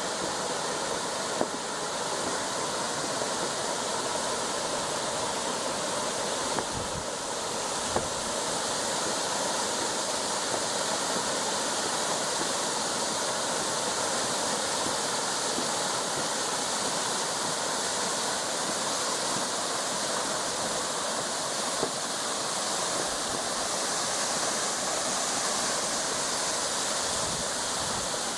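Steady rushing of a mountain stream's water, with a few brief knocks now and then.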